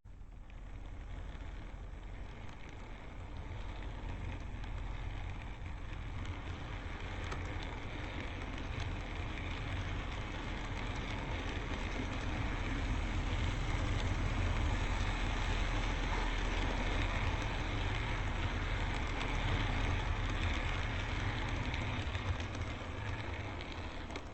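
N-gauge model train of an E231 series running along the track: a steady motor hum and wheel rumble that grows louder as it comes closer, then eases off near the end.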